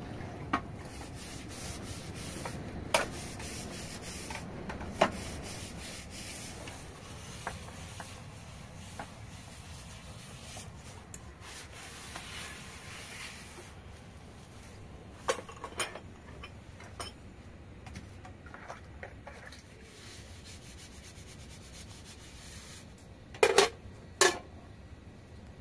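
Steady rubbing and scraping with a few sharp knocks, the loudest two coming close together near the end.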